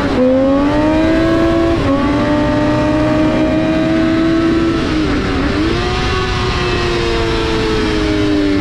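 Supersport motorcycle engine at full throttle, rising in pitch through the gears with upshifts at the start and about two seconds in. About five seconds in the pitch drops sharply and a quick blip follows as it shifts down under braking, then the engine note falls steadily as the bike slows for a corner, over constant wind rush.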